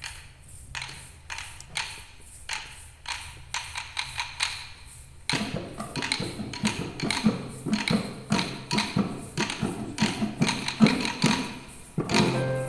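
A group of children tapping out a rhythm on hand percussion, at a steady pulse of about two taps a second. About five seconds in it gets louder and busier, with low thuds under the taps.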